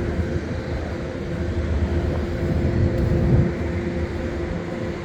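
Steady machinery hum: a constant low rumble with a couple of steady tones held throughout.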